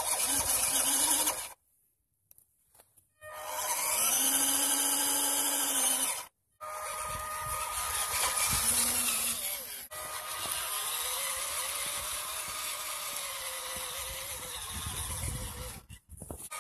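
Eachine EAT01 6WD RC truck's small electric drive motor and drivetrain whining while it drives, in several runs separated by short silent pauses, the pitch rising and falling with the throttle.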